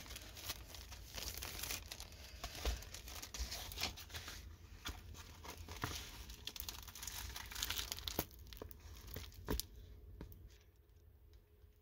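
Rolled diamond painting canvas being unrolled and flattened by hand, its clear plastic protective film crinkling and crackling with scattered sharp clicks. It quietens for about the last two seconds.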